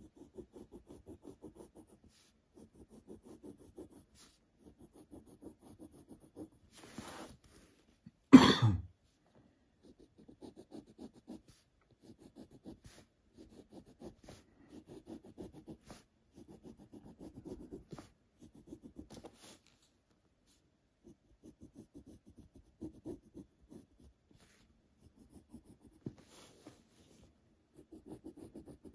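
Graphite pencil scratching on paper in short runs of quick back-and-forth strokes, a second or so at a time with pauses between, as the outline is drawn. One loud, short burst cuts in about eight seconds in.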